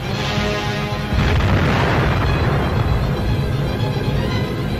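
Orchestral newsreel music, overtaken about a second in by a loud, continuous rumbling roar of dubbed battle noise, explosion-like, that largely drowns it out.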